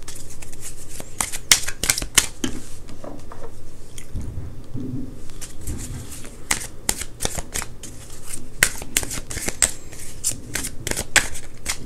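A deck of Heaven and Earth Tarot cards being shuffled by hand: an irregular run of quick card clicks and slaps, thinning out for a couple of seconds about four seconds in.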